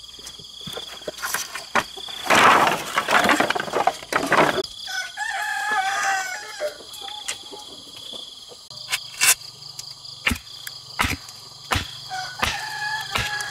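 A rooster crows about five seconds in, and another crow comes near the end. Before the first crow a loud rushing noise lasts about two seconds, and several sharp knocks follow later, over a steady high tone.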